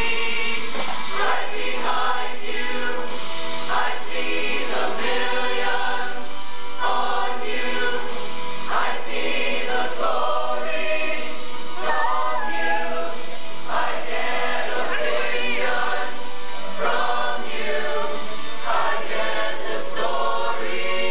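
A large mixed group of teenage voices singing together in chorus, without a break.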